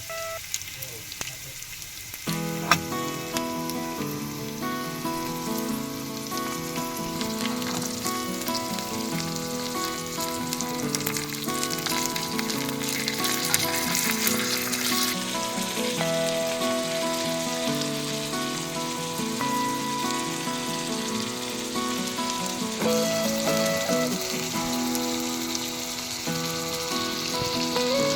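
Food frying in a miniature pan, a steady sizzle. Background music with a melody comes in about two seconds in and continues over it.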